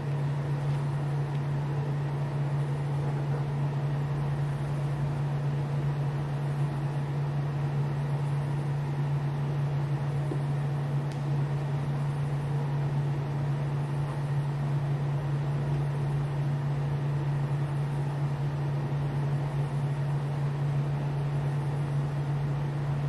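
A steady low hum: one strong constant low tone over an even haze of noise, without change.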